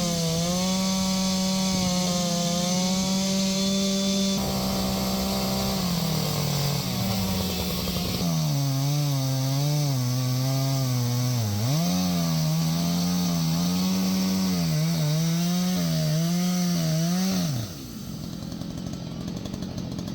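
Two-stroke chainsaw running hard while carving wood, its engine pitch dipping and recovering again and again as the chain bites and clears. Near the end the engine winds down and drops away.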